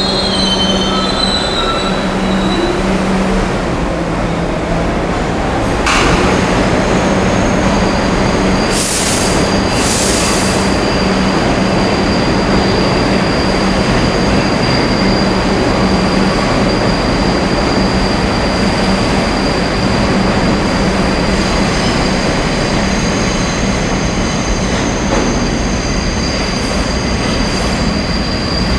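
New York City Subway R62 train running, a loud steady rumble with a low hum. About six seconds in there is a sharp knock. Around nine and ten seconds there are two short air hisses, and after that a steady high-pitched tone continues over the rumble.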